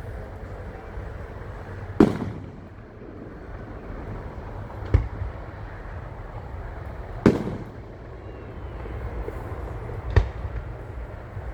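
Aerial fireworks shells bursting: four sharp bangs a few seconds apart, each trailing off in a short echo, over a steady low background noise.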